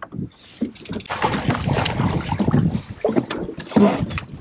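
Wind buffeting the microphone, with water splashing and the knocks of a landing net as a landlocked salmon is scooped from the lake and lifted into a small aluminum boat; the noise swells about a second in.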